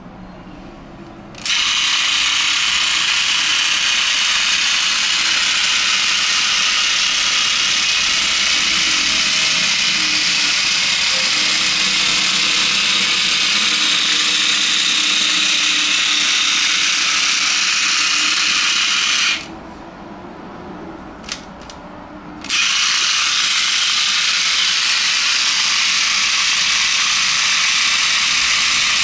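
Battery-powered toy bulldozer's small electric motor and plastic gears whirring as it drives along on its tracks. The whir starts about a second and a half in, stops for about three seconds with a single click in the gap, then starts again.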